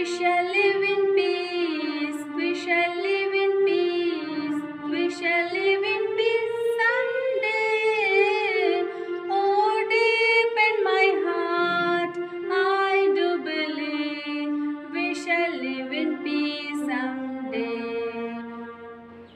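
A woman singing a slow melody solo, holding long notes that rise and fall in pitch.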